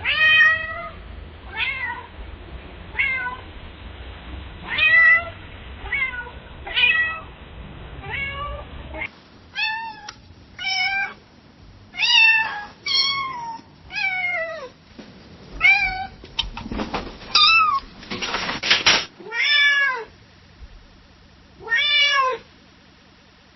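A domestic cat meowing over and over, about twenty short meows, each rising then falling in pitch and coming roughly a second apart. A short noisy rasp comes near the end of the run of calls, then a last single meow.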